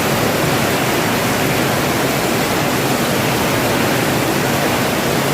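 Steady heavy rain falling, a dense even hiss with no distinct drops or pauses.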